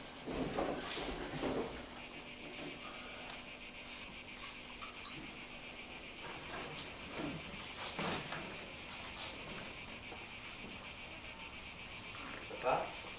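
Insects chirping steadily, a continuous high-pitched sound that goes on throughout.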